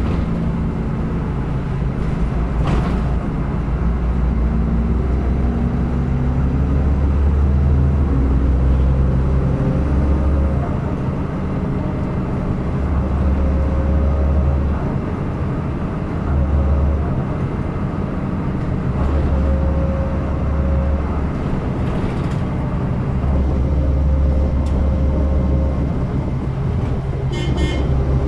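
City bus engine running, heard from inside at the back of the bus: a deep drone that swells and eases several times, with a few rattles and clicks.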